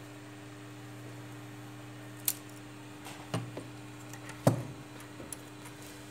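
Three sharp clicks and clacks as the plastic and metal parts of a disassembled Samsung Galaxy A20 phone are handled and set down on the work mat, the loudest about four and a half seconds in. A steady low hum runs underneath.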